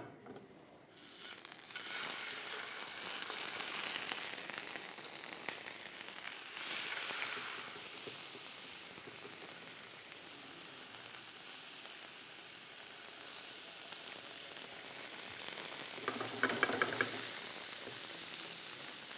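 Two zander fillets frying skin-side down in lightly warm oil in a non-stick pan. A steady sizzle starts about a second and a half in, as the fish goes into the pan.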